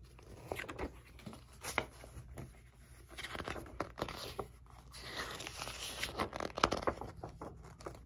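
Glossy magazine pages being turned and handled: a few sharp paper flicks, then longer papery rustling in the second half.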